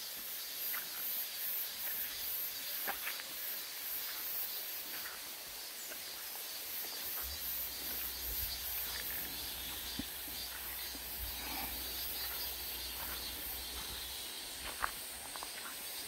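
Insects calling in woodland: a steady high buzz that pulses in a regular rhythm, with scattered footsteps on a dirt trail.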